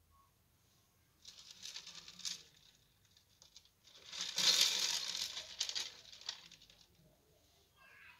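Water splashing and crackling as a small mesh fish net is swept through an aquarium, in two bursts: a short one about a second in and a longer, louder one about four seconds in.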